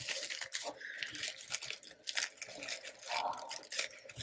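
Tissue-paper wrapping crinkling and rustling under the fingers as a sticker is peeled off it, in quick, irregular crackles.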